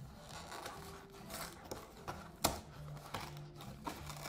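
Cardboard box being pried open by hand, its flaps and glued seams scraping and tearing, with one sharp snap a little past halfway.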